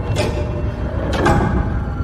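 A grandfather clock ticking: two heavy, echoing ticks about a second apart, over a low rumbling drone.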